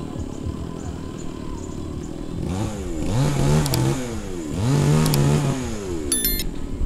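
Light truck's diesel engine running at idle, revved twice in quick succession, each rev rising and falling. A few short clicks and a brief high chime near the end.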